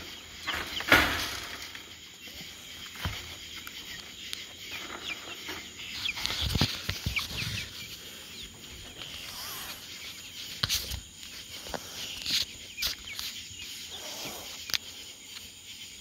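Poultry in a pen making faint clucks and high peeps, over the rubbing, bumps and knocks of a phone being handled. The loudest is a sharp knock about a second in.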